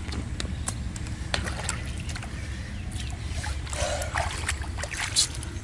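Water splashing and sloshing in a shallow canal, with scattered sharp clicks over a steady low rumble; the loudest splashes come about three to four seconds in and once more near the end.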